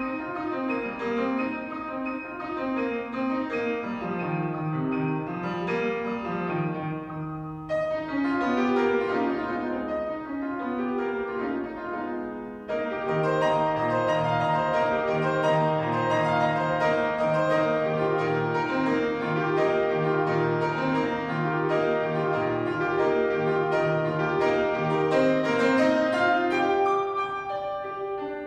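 Grand piano played solo, a classical piece. The phrase breaks off briefly about eight seconds in, and from about halfway through the playing is louder and fuller in the bass.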